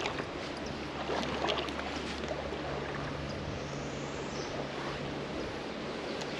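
Creek water running steadily, with a few faint clicks in the first couple of seconds.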